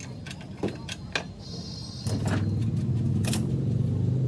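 A few light knocks of a plywood panel being handled against a truck's wooden body frame. From about halfway, a steady low motor hum sets in under them.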